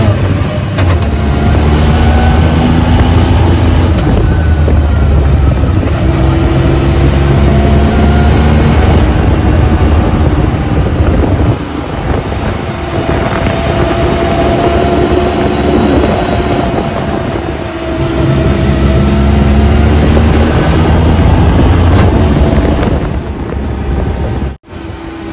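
Side-by-side UTV engine running under throttle in the open cab, its pitch rising and falling as the vehicle speeds up and eases off, over a low rumble with tyre and wind noise on the dirt trail. The sound cuts out briefly near the end.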